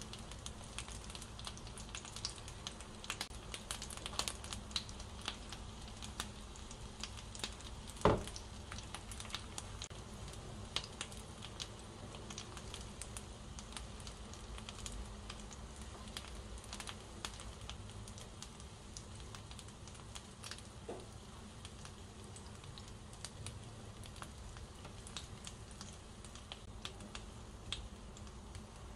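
Egg-coated fish fritters (flounder and tuna jeon) frying gently in oil in a nonstick pan over a low flame: a soft sizzle with scattered small crackles. One louder knock comes about eight seconds in.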